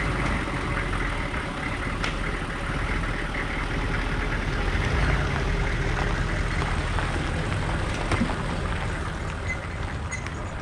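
Motor vehicle running steadily, a continuous engine rumble with road noise.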